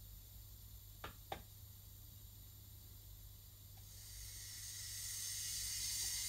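Model LMS Beyer-Garratt steam locomotive's sound effects: two sharp clicks about a second in, then a steam hiss that swells from about four seconds in.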